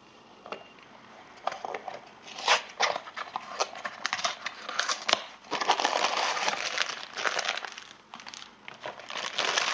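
A Funko Mystery Mini blind box being opened: its foil-wrapped packaging crinkles and tears in irregular bursts, picking up and growing denser from about halfway.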